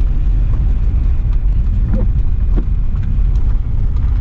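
Wind buffeting an uncovered camera microphone: a loud, low, steady rumble, with a few faint short sounds over it.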